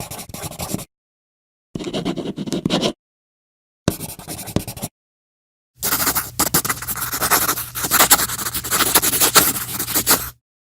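Writing on paper: scratchy strokes of a pen or pencil tip dragged across the page. Three short bursts of about a second each, with silent gaps between, then a longer, louder run of writing of about four and a half seconds.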